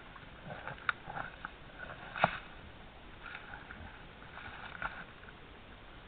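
Wild boars (Sus scrofa ussuricus) snuffling and rooting through forest-floor leaf litter with their snouts, a soft scattered rustling. Two sharp clicks come about a second and two seconds in; the second is the loudest.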